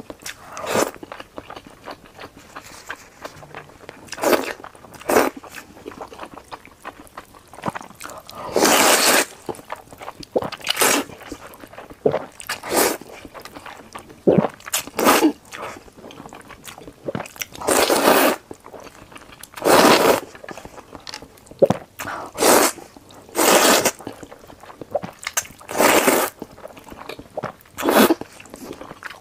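Close-miked slurping of tomato-broth egg noodles: about a dozen loud slurps, each lasting half a second to a second, with quieter mouth and chewing sounds between.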